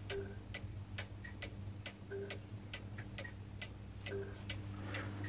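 Gents Pulsynetic electric master clock ticking steadily, about two ticks a second, as its pendulum swings, with a faint steady low hum underneath.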